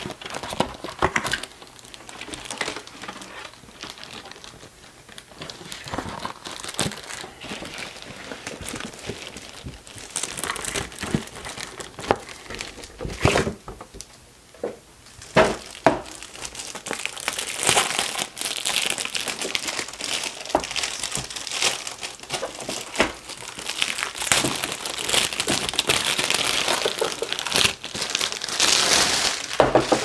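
Packaging crinkling and rustling as it is handled, with many small clicks and knocks; the crinkling grows denser and louder in the second half.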